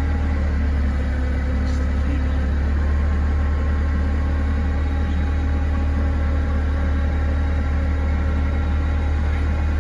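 Forklift engine running steadily, a low, even drone with no revving.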